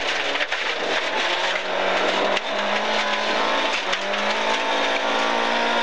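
Rally car engine heard from inside the cabin, running hard on a gravel stage, its note stepping up about two and a half and four seconds in. A steady haze of road and tyre noise runs underneath, with scattered sharp clicks.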